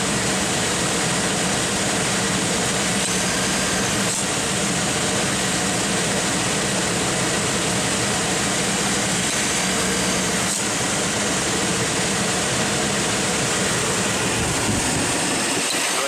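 Car engine idling under the open hood with the air conditioning on max, a steady running noise.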